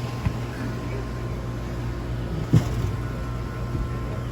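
An engine idling with a steady low hum, with a short knock about two and a half seconds in.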